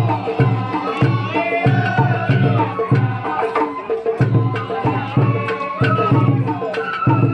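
Sawara-bayashi festival music from a float's hayashi band: a high wavering bamboo flute melody over a steady beat of taiko drums.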